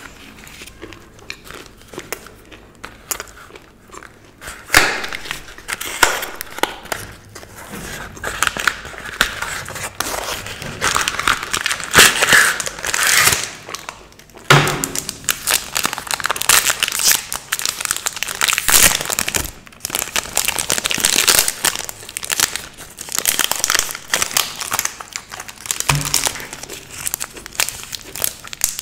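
Chocolate bar wrapper crinkling and tearing as it is pulled open by hand. It is a dense run of crackles with sharp louder bursts, starting about five seconds in.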